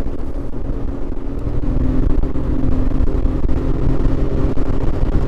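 Bass boat's outboard motor running steadily under way, a continuous low hum with the rush of the hull through the water.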